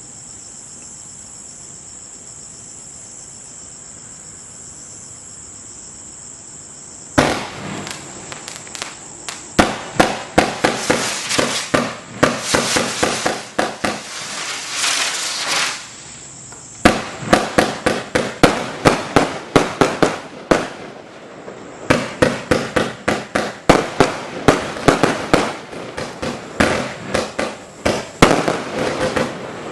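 Crickets chirp steadily at first. About seven seconds in, a Gemstone Gargantuan 189-shot firework barrage starts firing rapid volleys of shots and bursts, and it keeps going with a short lull about two-thirds of the way through.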